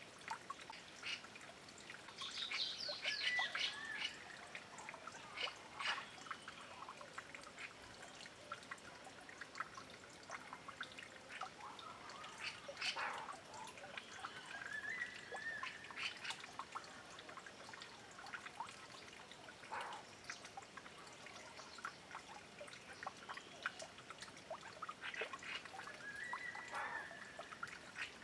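Taiwan scimitar babblers bathing in a stream: water trickling and splashing with many short splashes, and short bird calls three times, about three seconds in, midway and near the end.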